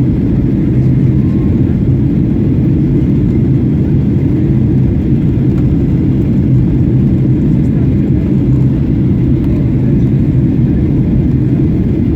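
Steady low cabin roar of a Boeing 737-800 airliner in flight: engine and airflow noise heard from inside the passenger cabin, with a constant low hum.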